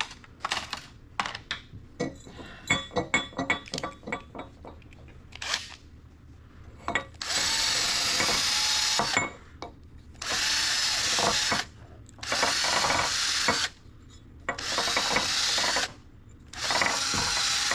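Power drill spinning a small stainless wire brush in the bolt holes of an aluminium water pump housing, run in five short bursts of a second and a half to two seconds each. Before the bursts, a run of light metal clicks and clinks as tools are handled.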